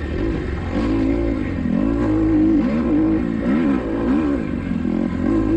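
Kawasaki KX250XC motocross bike engine revving up and down over and over, its pitch rising and falling in quick swings as the throttle is worked.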